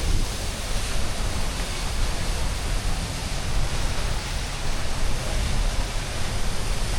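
A waterfall pouring hard: a steady rush of falling water with a deep, unsteady rumble underneath.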